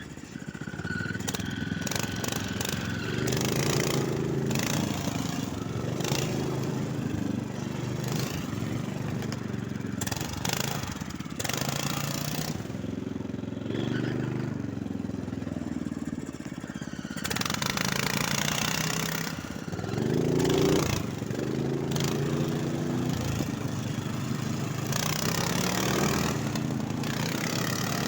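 Snowmobile engine running under changing throttle, its pitch rising and falling as it rides, with a sharp rev about twenty seconds in.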